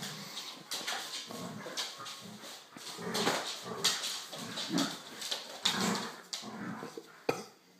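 A golden retriever puppy and a black Labrador playing: a quick run of short dog noises mixed with scuffling and clicks.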